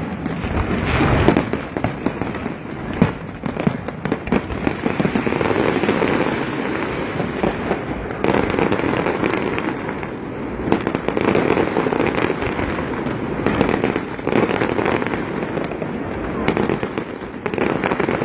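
Aerial fireworks display: a continuous barrage of shell bursts, many bangs a second without a pause.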